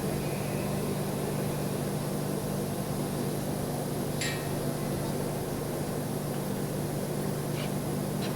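Steady electrical hum and hiss of welding on 4-inch stainless steel, with a couple of faint ticks.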